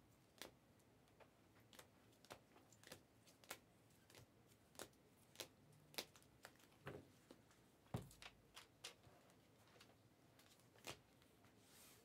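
Faint, irregular clicks and taps of sleeved trading cards being handled and set down, with a slightly heavier knock about eight seconds in.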